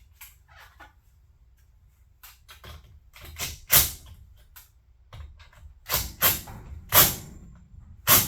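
A series of sharp knocks and clacks at irregular spacing, over a low steady hum; the loudest come near four, six, seven and eight seconds in.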